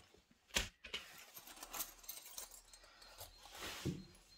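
Handling noises on a wooden cabinet top: a sharp knock about half a second in, then hands rubbing and scraping across the board, with a low thump near the end.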